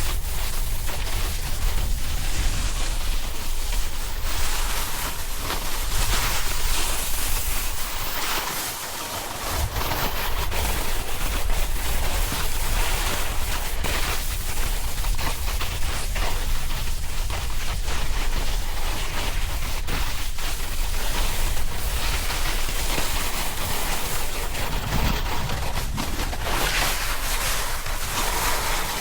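Wind buffeting the action camera's microphone, over the steady hiss and scrape of a snowboard sliding across snow during a fast run. There is a brief lull about nine seconds in.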